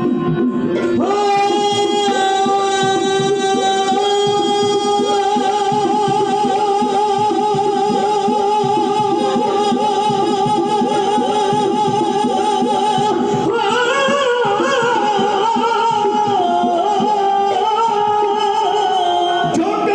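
Sikh kirtan performed live by a group of ragis: a harmonium holds long steady notes over a quick hand-drum rhythm, and men's voices come in singing the hymn about thirteen seconds in.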